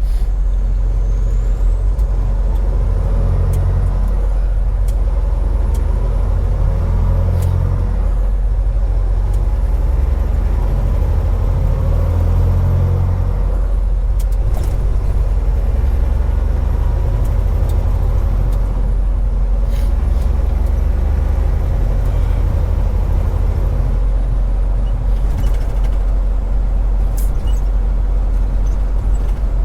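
Semi truck's diesel engine running steadily, heard from inside the cab, a constant low rumble with a few brief hisses.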